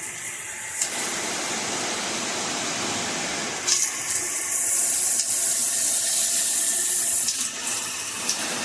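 Water spraying from a Cobbe 9-function handheld shower head, a steady hiss. About four seconds in the spray setting is changed with a twist and the spray becomes louder and hissier, easing off slightly near the end.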